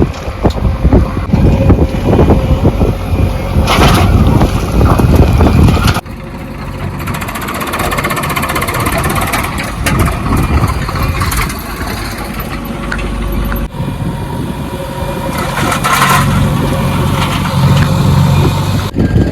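Diesel engines of heavy machinery running, the sound changing abruptly at two cuts. In the first few seconds, wind buffeting on the microphone is the loudest sound.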